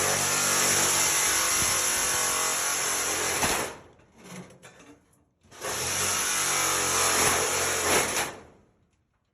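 Cordless angle grinder running and cutting metal, in two runs of about three seconds each with a short stop between, as screws on the furnace cabinet are cut off.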